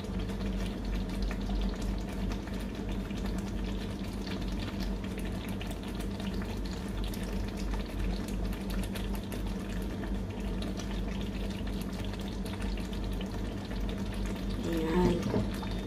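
Thick tomato sauce simmering in a wok, bubbling and crackling steadily, over a steady low hum.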